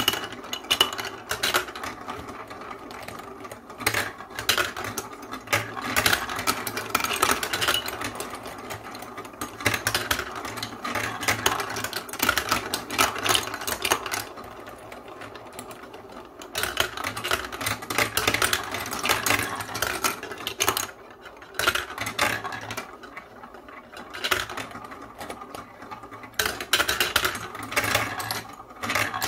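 Plastic balls rolling round plastic funnels and down block-built chutes of a marble run, rattling and clacking against the track and each other as they pile up at the bottom. A dense run of quick clicks with a few brief lulls.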